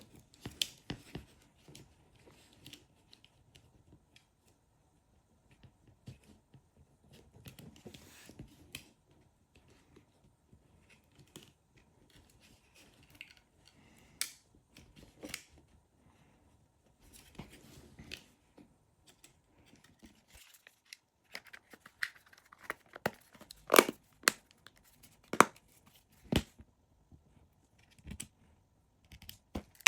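Scattered small clicks, taps and scrapes of hands working on the plastic parts of a Google Nest Doorbell as its battery connector is plugged in and the device is put back together. A run of sharper, louder clicks comes in the last third.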